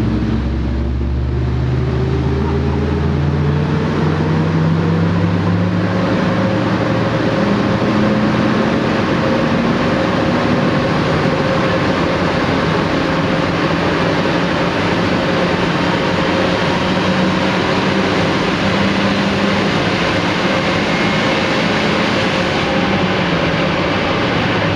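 Supercharged Toyota Yaris T-Sport 1.5 VVT-i 1NZ-FE four-cylinder running hard on a rolling-road dyno. The engine note rises in pitch over the first several seconds and then holds high over a loud, steady rush of noise. The TTE supercharger failed during this dyno run.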